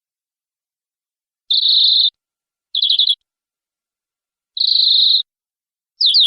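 Domestic canary singing: after about a second and a half of silence, three short, rapid, high trills with pauses between them, then a fast, even trill of repeated falling notes begins near the end.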